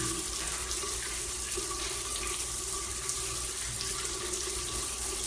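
Shower running, its spray falling in a steady hiss onto a tiled shower floor.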